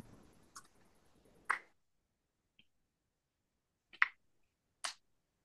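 A few isolated sharp clicks of computer keyboard keys being typed on, the loudest about four seconds in. A faint background hiss cuts off about a second and a half in.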